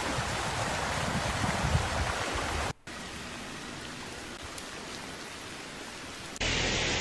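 Muddy floodwater rushing past debris, a steady rush with a low rumble. It breaks off for a moment a little under three seconds in and comes back quieter, and a louder hiss starts near the end.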